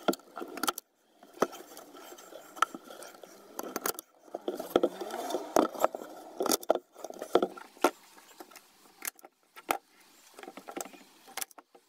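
Hand-held manual staple gun driving staples through canvas into the wooden floor of a trunk: a string of sharp, irregular snaps, with rustling and scraping of handling between them.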